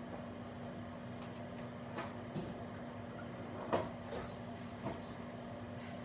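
Microwave oven running with a steady hum, with a few short knocks and clinks of kitchenware about two, four and five seconds in.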